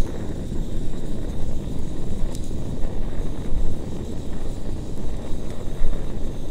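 Iwatani Fore Winds Luxe Camp Stove gas burner running under a pot just after being lit: a steady low rushing of the flame.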